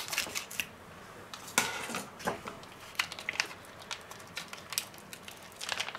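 Knife slitting open a vacuum-sealed plastic pack around a pork knuckle on a plate, with scattered crinkles of the plastic being pulled away and light clicks of the blade against the plate.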